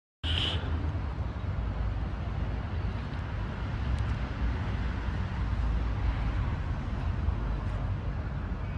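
Outdoor town ambience: a steady low rumble of distant traffic, cutting in suddenly with a brief hiss at the start. No church bells are ringing.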